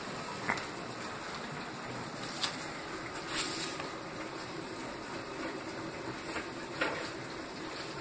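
Steady rush of water running from a tap, with four light sharp clicks spread through.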